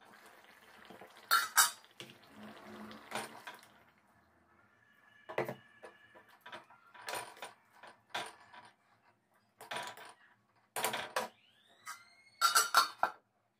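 Stainless steel cookware clanking: a steel lid and a ladle knocking against a steel pot, about ten sharp metal clinks spread through, a few ringing briefly.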